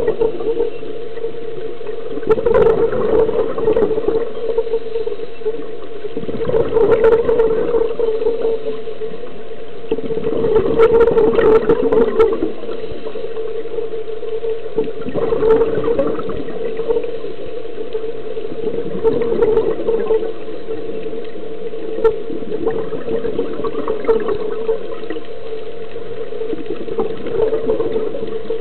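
Scuba diver's regulator exhaling bubbles underwater in a slow breathing rhythm: a gurgling surge lasting a second or two about every four seconds, over a steady low hum.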